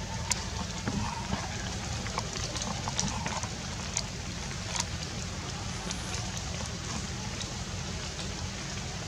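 Wet forest ambience: a steady background hiss with scattered light ticks of water dripping from the trees after rain.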